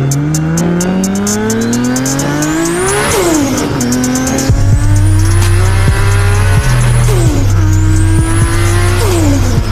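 A big-turbo Toyota Supra's 2JZ straight-six accelerating hard at full throttle. The revs climb high, then drop sharply at each gear change about three, seven and nine seconds in, with a high turbo whine rising and falling with the revs. Music with a steady bass beat runs underneath from about halfway through.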